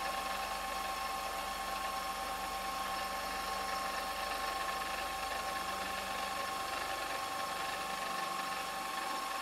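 Milling machine spindle running with an end mill cutting white plastic stock held in a 4th-axis chuck: a steady whine with two high tones over an even cutting noise.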